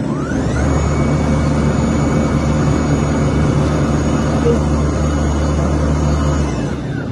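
Motor of an automatic BLDC stator production machine spinning up with a rising whine, running at a steady pitch, then winding down near the end, over a steady machinery hum.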